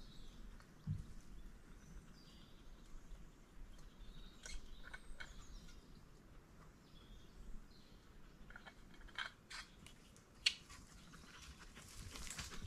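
Quiet woodland ambience with a few short bird chirps and scattered sharp clicks and crunches. Near the end come rustling footsteps on dry, cleared ground.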